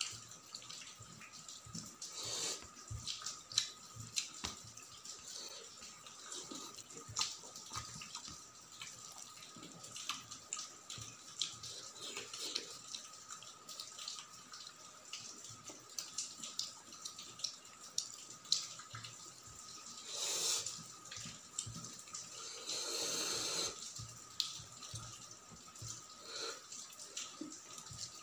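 Close-miked eating by hand: wet squishing as fingers mix rice with potato gravy on a steel plate, and smacking chewing, with many small sticky clicks and two longer wet squelches past the middle. A faint steady whine sits underneath.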